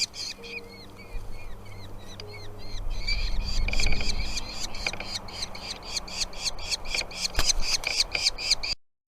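Nestling birds begging with repeated high chirps, spaced out at first, then a fast, dense chorus of about four or five calls a second from about three seconds in, as food is brought to the nest. The calls cut off suddenly near the end.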